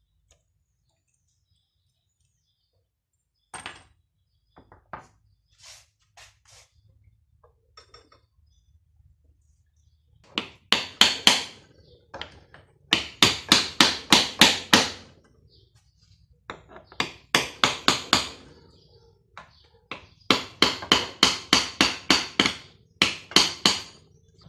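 Hammer blows on the front end cover of a 7.5 kW three-phase electric motor, knocking it loose from the housing. A few light clicks come first, then from about ten seconds in the blows come in quick runs of four to eight, about five a second, with short pauses between runs.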